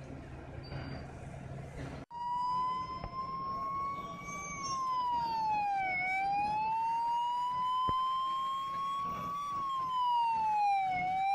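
Fire engine siren wailing: one tone that rises slowly and then falls, through about two long cycles. It starts abruptly about two seconds in, after a low steady rumble.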